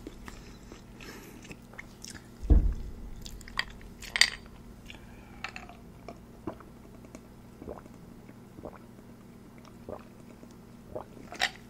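Close-miked mouth sounds of a person chewing food, with scattered small clicks, and a low thump about two and a half seconds in. In the second half she drinks from a glass, so there are small sips and swallows.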